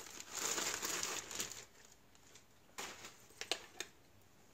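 Packaging rustling and crinkling for about a second and a half as a leather TIG torch shroud is unwrapped and handled, then a few light clicks.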